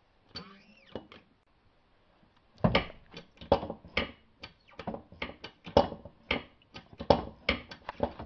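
Irregular sharp metallic clicks and knocks, one to three a second, starting a little over two seconds in, as a Porta-Power hydraulic ram is pumped up to press the center hub out of a rear wheel bearing.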